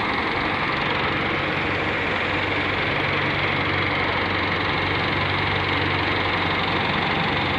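Diesel engines of a wheeled excavator and a tractor running steadily at close range, an even drone with no break.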